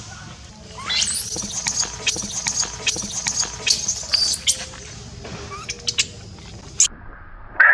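Baby long-tailed macaque screaming in distress as an adult grabs and drags it: about five shrill, very high squeals over four seconds, each jumping up in pitch and then held. A few faint clicks and one short squeak follow near the end.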